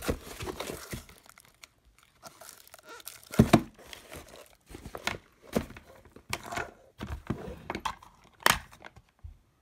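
Clear plastic packaging crinkling and rustling while the tire inflator's coiled hose and parts are handled, with scattered knocks; the loudest is a thud about three and a half seconds in.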